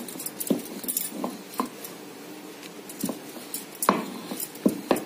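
Wooden rolling pin rolling out a small ball of dough into a puri, knocking and clicking irregularly against the rolling surface, with the loudest knock about four seconds in.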